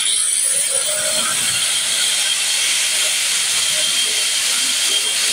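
Handheld angle grinder running at full speed just after being switched on: a steady high whine over a loud hiss.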